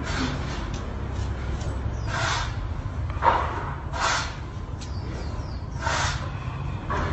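Steady low background rumble, with five short breathy hisses a second or two apart.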